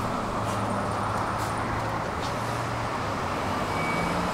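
Steady road traffic noise from a city street, with a low hum over the first three seconds.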